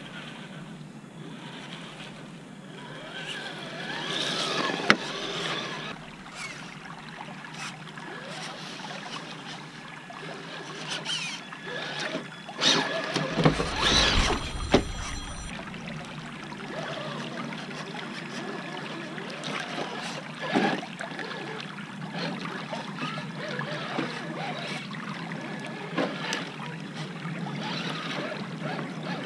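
Traxxas TRX-4 RC crawler driving through a shallow rocky creek over running water, with splashing and scattered knocks from the truck on the rocks. About halfway through there is a loud, deep rush of noise close to the microphone, lasting about two seconds.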